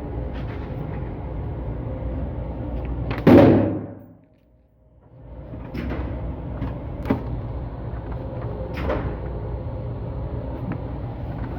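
A steady low rumble with one sharp, loud bang about three seconds in that dies away over about half a second. Then comes a short near-silent gap before the rumble returns.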